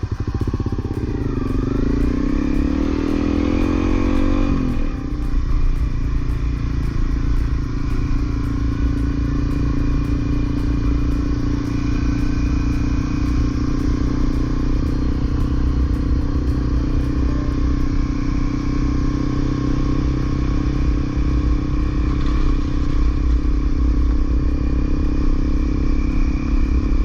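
Honda CRF250L's single-cylinder four-stroke engine on the move, its pitch rising and falling as it revs through the gears in the first few seconds, then running steadily at a constant speed.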